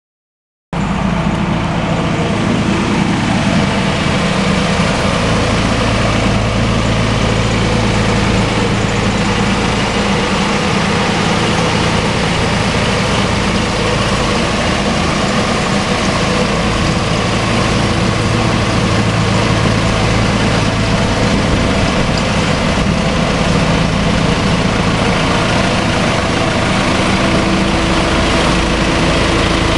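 Tractor-towed vacuum road sweeper at work: a tractor's diesel engine running steadily under the even rushing noise of the sweeper's suction and brush. The sound cuts in abruptly a moment after the start.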